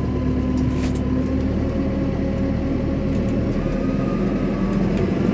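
Deutz-Fahr tractor's engine running steadily as it drives along the road, heard from inside the cab.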